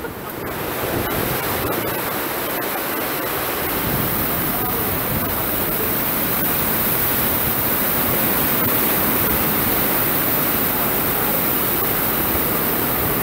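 Heavy rain pouring down in a wind-driven downpour, a dense steady hiss, heard from under a metal-roofed shed.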